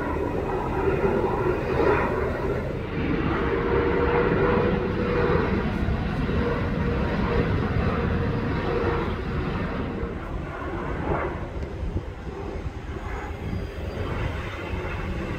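Jet engines of airliners on final approach, among them an Emirates Boeing 777, passing low overhead: a steady rumble with a held whine through the middle, growing quieter after about ten seconds.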